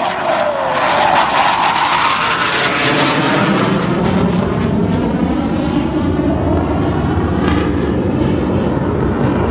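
BAE Hawk jet trainers of the Surya Kiran aerobatic team flying past overhead, a loud, steady rush of jet engine noise. A whine drops in pitch within the first second, rises and falls again, then gives way to a wavering, phasing shimmer as the jets move across the sky.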